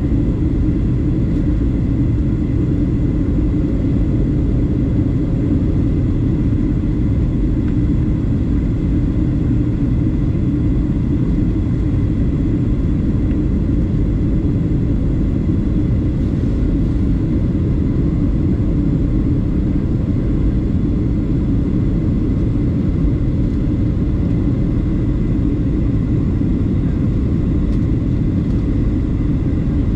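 Steady cabin noise of a Boeing 737-700 in flight, heard from a rear window seat: the deep, even rumble of the CFM56-7B engines and the rushing airflow, with a faint steady high whine above it.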